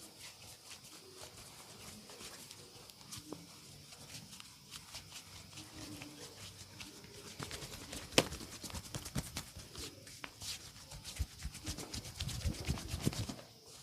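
Hands working on a person during a massage: faint rubbing and light taps, then from about seven seconds a quick run of slaps and taps, with one much louder sharp snap just after eight seconds and a few low thuds near the end.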